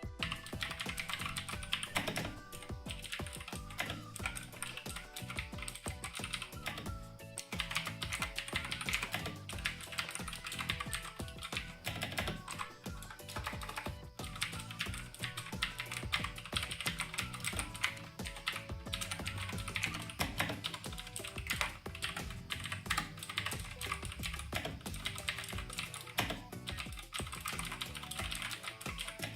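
Typing on a Razer BlackWidow Chroma V2 mechanical keyboard fitted with Razer Green switches, the tactile, clicky type: a continuous, rapid stream of key clicks that pauses briefly twice.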